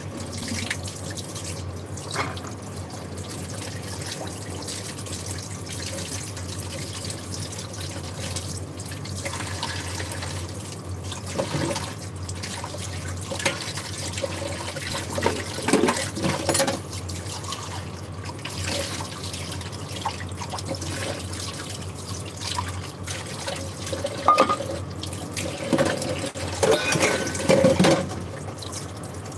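Steady watery hiss over a low hum, with short bursts of a utensil clattering against a bowl about halfway through and again near the end.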